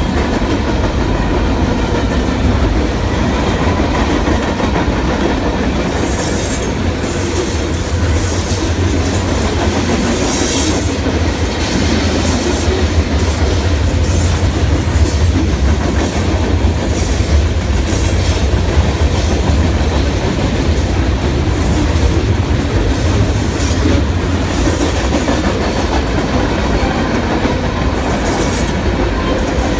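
Loaded freight train of covered hopper cars rolling past close by: a steady low rumble with the clickety-clack of wheels over rail joints. From about six seconds in, bouts of high wheel squeal come and go every few seconds.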